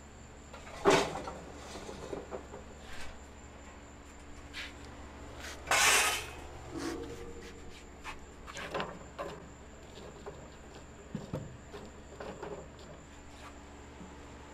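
Scattered knocks and clunks of things being handled, with a sharp knock about a second in and a longer scraping clatter around six seconds, over a steady low hum.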